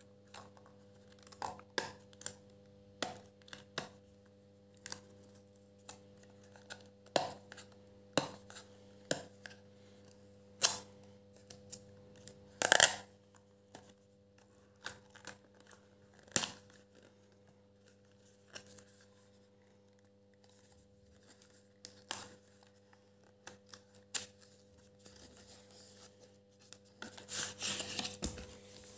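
Cardboard and plastic packaging of an earphone box being handled and opened: scattered short clicks and rustles, with a longer crackling stretch near the end as the plastic tray is pulled out of the box. A faint steady hum runs underneath.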